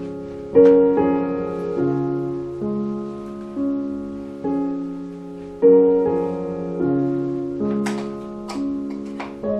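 Gentle piano background music, notes struck one after another and left to ring. A few light clicks sound near the end.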